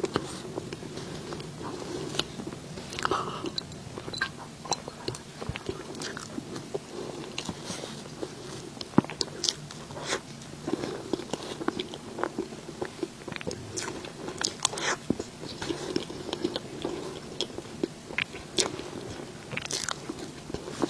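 Close-miked eating of cake and desserts: bites with some crunching, chewing and many short, sharp wet mouth clicks at an irregular pace.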